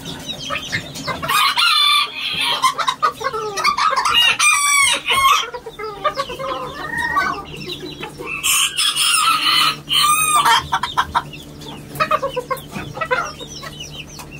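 Roosters crowing several times, with clucking between the crows.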